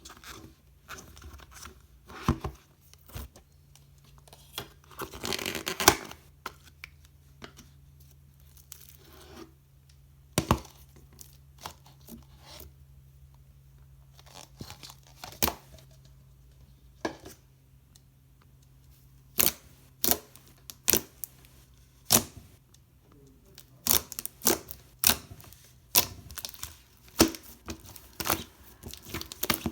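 Slime being squeezed, stretched and pressed by hand, giving irregular sharp sticky pops and clicks, with a dense run of crackling about five seconds in.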